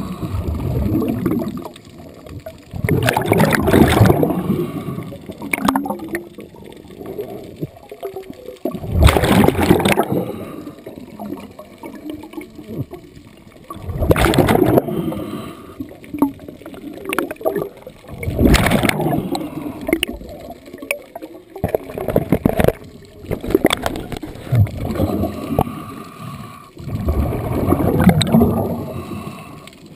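Scuba diver breathing through a regulator: a bubbling rush of exhaled air comes about every four to five seconds, with quieter water noise between breaths.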